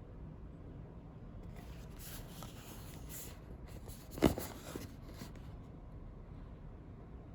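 Packaging being handled: a brief rustle, then one sharp knock about four seconds in, as of an object set down on a hard surface, with a few light clicks after.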